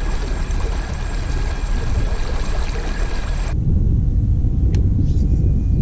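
Water rushing and splashing past the hull of a moving fishing kayak over a steady low rumble. About three and a half seconds in it cuts off suddenly, leaving only the steady low rumble with a few light clicks.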